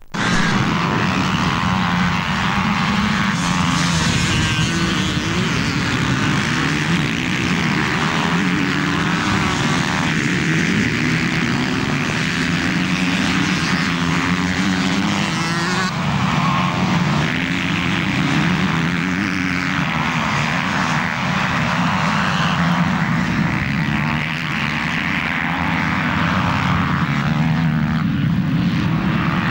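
Several motocross bikes' engines running hard as they race around the track, the pitch rising and falling with throttle and gear changes.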